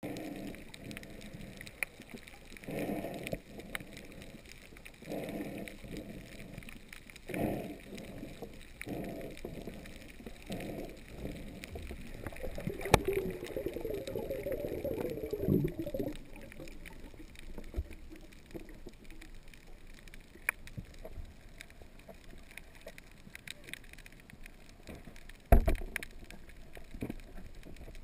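Muffled underwater sound heard through an action camera's housing as a diver swims: low surges of water every second or two, then a stretch of bubbling in the middle. A sharp knock comes about halfway, and a louder one near the end.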